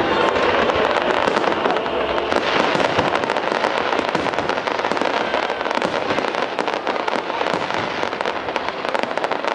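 Fireworks display: a dense, continuous crackling of many rapid small pops, with no pause.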